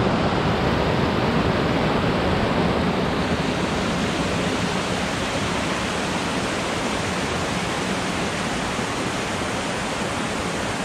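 Mountain creek rushing over granite boulders in small cascades: a loud, steady rush of white water that grows a little quieter toward the end.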